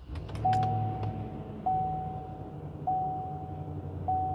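A 2019 GMC Sierra 2500's 6.0-liter V8 gas engine starts up and settles into a steady idle. Over it, a dashboard warning chime dings four times, about once every 1.2 seconds.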